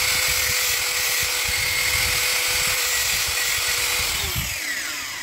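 Small electric angle grinder with a cutting disc running at full speed, a steady high whine with grinding as it cuts flats on the sides of a plastic nut. About four seconds in it is switched off and the whine falls away as the disc spins down.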